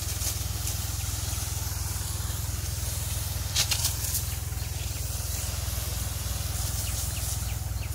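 High-pressure spray lance of a tractor-mounted HTP pump sprayer hissing as it throws a fine mist, over the steady low drone of the engine driving the pump. There is a brief louder hiss about three and a half seconds in.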